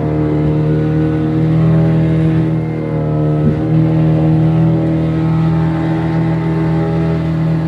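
Small boat's engine running steadily at an even speed, loud throughout with a constant pitch.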